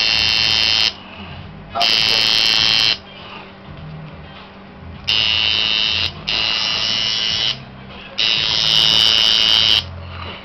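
Coil tattoo machine buzzing in five short runs of about one to one and a half seconds each, switched on and off between strokes as it needles skin.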